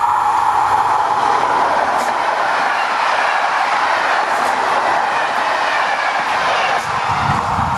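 Electric passenger train passing close by at speed: a steady, loud rush of wheels on the track.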